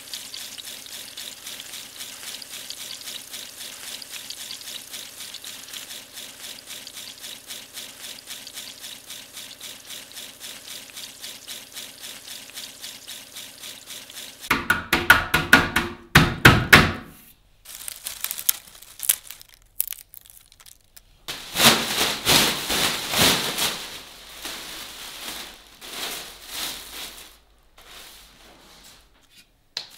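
Potato slices deep-frying in hot oil in a wok, a steady sizzle. About halfway through the sizzle stops, and loud bursts of dry rustling and crunching follow, with pauses between: crisp fried chips being tipped and handled in a steel pot.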